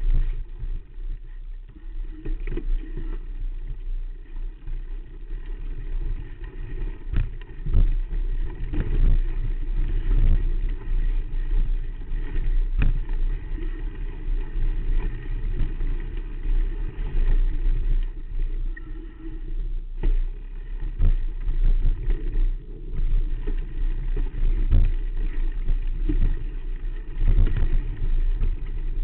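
Rumble and irregular knocks from a camera mounted on a mountain bike's front fork as it rolls over a rough, rocky dirt trail, with wind buffeting the microphone.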